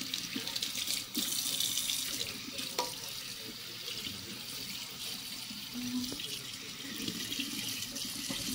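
Faucet running steadily into a sink, the stream splashing over a hand and a Shih tzu puppy's wet fur as it is rinsed.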